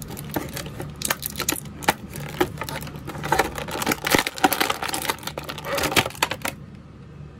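Thin clear plastic packaging crinkling and crackling as an action figure is pulled out of its tray, a rapid irregular run of clicks. It dies down about six and a half seconds in.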